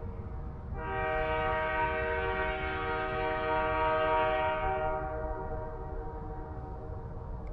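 CN freight locomotive's air horn sounding one long held chord of several steady notes, louder from about a second in, then fading off over the last couple of seconds, with a low rumble underneath.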